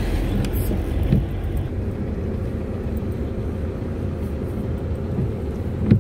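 Car driving, a steady low rumble with a knock about a second in and another near the end.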